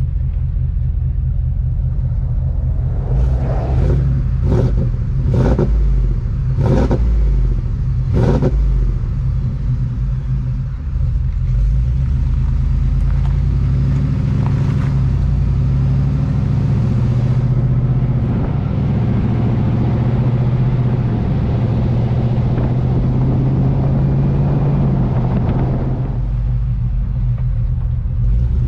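Supercharged 7.3-litre gas V8 of a 2020 Ford F-250, running through long-tube headers and an MBRP exhaust with a steady low rumble. About six short, sharp bursts come over it between about three and eight seconds in.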